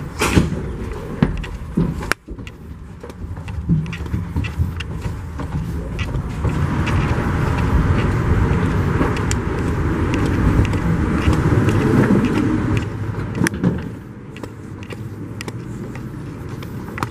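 Footsteps and handling knocks from walking up an airport jet bridge over a steady rumble. The rumble swells in the middle and falls away sharply about fourteen seconds in, as the walker comes out into the terminal.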